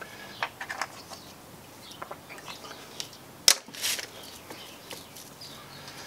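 Scattered small clicks, knocks and rustles of hand tools being handled on a wooden jig and workbench, with one sharp click about three and a half seconds in.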